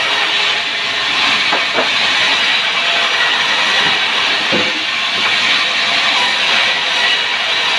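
Steady loud hissing noise, with a couple of faint knocks about a second and a half in and again past the middle.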